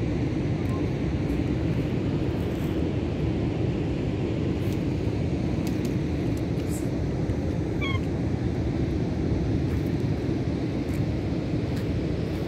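Steady low rumbling outdoor noise of wind and surf at a beach, with one brief faint high chirp about eight seconds in.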